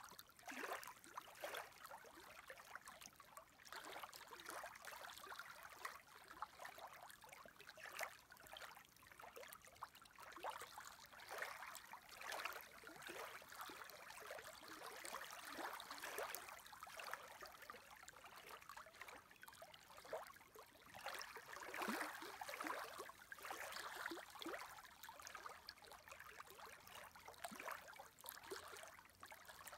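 Small lake waves lapping softly in uneven little splashes.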